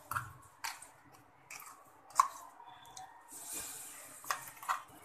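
Crushed raw-mango chutney paste squishing off a steel spoon into a stainless steel bowl of oil. There are a few light knocks of the spoon against the bowl, the sharpest about two seconds in.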